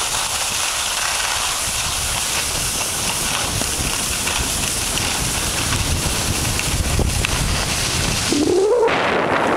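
Skis sliding over packed snow and wind rushing on the microphone during a downhill ski run: a steady hiss with a low rumble. A brief rising tone near the end.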